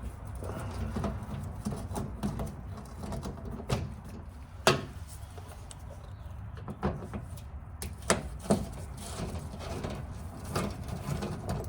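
Scattered clicks and knocks of screws, clips and plastic panel pieces being worked loose with a Phillips screwdriver while an under-engine splash shield is removed. A steady low hum runs underneath.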